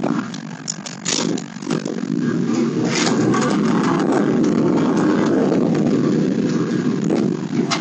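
Pickup truck engine running, heard from inside the cab as a steady rumble, with a couple of short knocks about a second and three seconds in.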